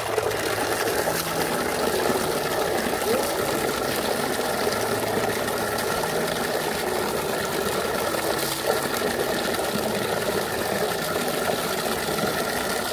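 A stream of water pouring steadily into a plastic tub already full of water, giving a loud, even splashing rush.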